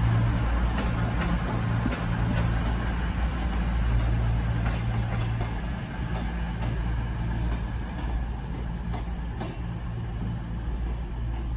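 Diesel multiple-unit train, an Avanti West Coast Class 221 Voyager, its underfloor diesel engines running with a steady low drone as it pulls away, fading slightly over the last few seconds.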